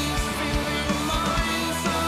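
Progressive rock song played by a band: guitars, bass and drums, with a steady beat of kick-drum hits.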